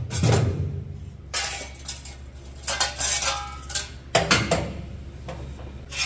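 Hard metal parts clinking and clattering as they are handled, in several separate bursts, one with a brief metallic ring about three seconds in.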